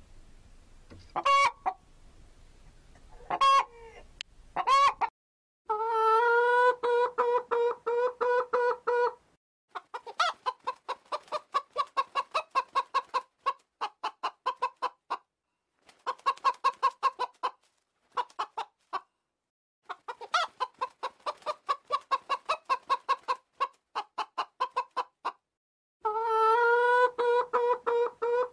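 Chicken clucking. A few single calls come about a second apart at first. They give way, about five seconds in, to long runs of rapid, even clucks broken by short silences.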